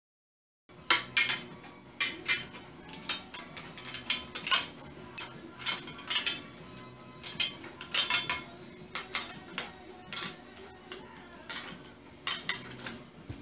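Steel rails, bolts and hand tools (a wrench and pliers) clinking and knocking together as short bolts are fitted and tightened on a steel target stand: irregular sharp metallic clinks, a couple each second, beginning just under a second in.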